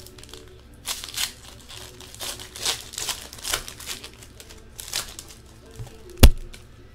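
A Panini Prizm football card pack's wrapper crinkling and tearing as it is opened by hand, in a string of short bursts, with one sharp tap about six seconds in.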